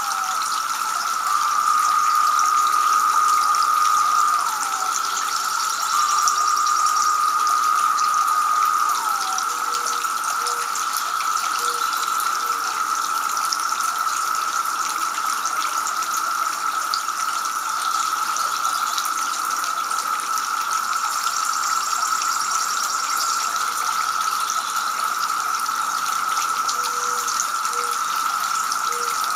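Water splashing and trickling from a two-tier garden fountain into its basin, steady and unbroken. A steady high tone runs under it. Twice in the first ten seconds the tone holds louder for about three seconds, then slides down in pitch as it ends.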